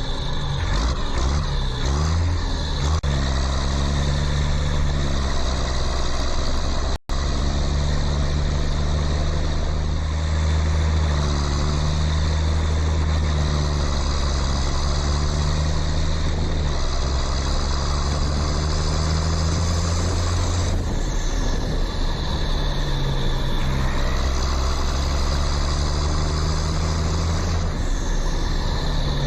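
Steady engine-like motor drone of a working toy tractor, holding a low hum that shifts pitch slightly at several abrupt cuts, with a brief dropout about seven seconds in.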